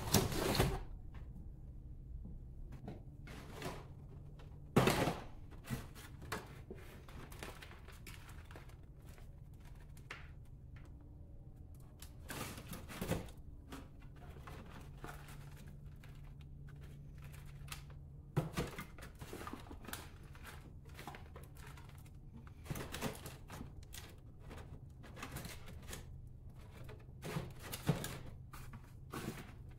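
Small black plastic pots and a plug tray being handled and filled with potting mix from a plastic potting tray: scattered clicks, knocks and light scraping of soil, a few knocks louder than the rest. A faint steady low hum runs underneath.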